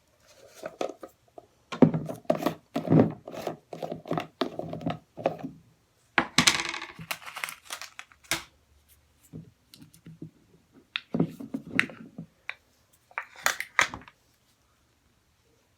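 Handling noises: irregular clicks and knocks with a crinkling rustle about six seconds in.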